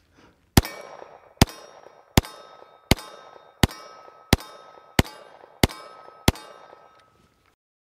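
Nine pistol shots from a Heckler & Koch Mark 23 Mod 0 .45 ACP, fired at a steady pace about two every three seconds. Each shot is followed by a short ringing.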